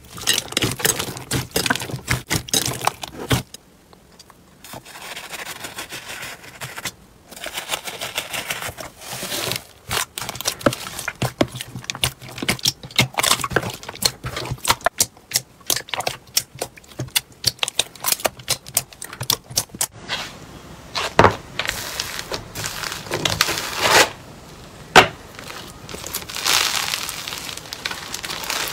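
Hands kneading and squeezing slime: a dense run of sticky pops and crackles as air pockets burst, with a few louder pops in the second half.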